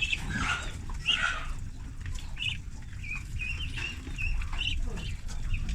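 A group of ducklings peeping continuously, many short high chirps overlapping, over a low steady rumble.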